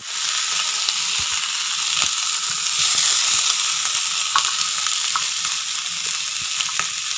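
Freshly ground green chilli, ginger, coriander and coconut paste sizzling in hot oil in a frying pan. It makes a steady hiss with a few faint ticks.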